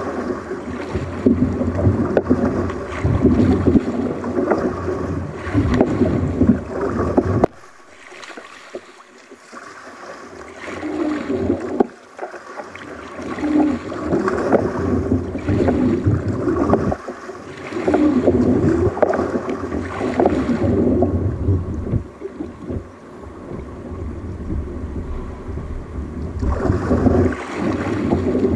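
Wind buffeting the camera microphone and water splashing around a kayak on the sea, an uneven rumbling noise. It drops off suddenly about seven and a half seconds in, then picks up again.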